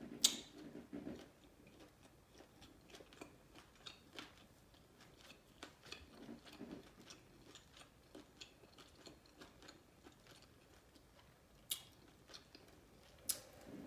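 Close-miked chewing of soft seafood-boil food (potatoes and shrimp in sauce): faint wet mouth smacks and many small clicks, with a few sharper clicks, the loudest just after the start and two more near the end.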